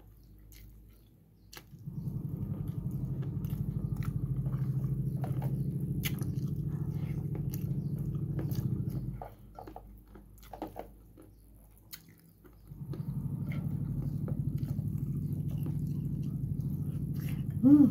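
Close-miked chewing and mouth sounds of someone eating boiled pork belly and rice. The sound comes in two long stretches of several seconds with a short pause between, dotted with small clicks and smacks.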